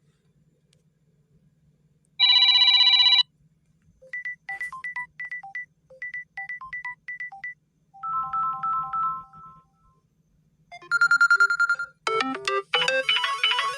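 Samsung Galaxy A04 ringtones played one after another, each cut off after a second or so. First a short buzzy tone, then a run of quick beeps, a brief three-note chime phrase, another buzzy tone, and near the end a busier electronic melody.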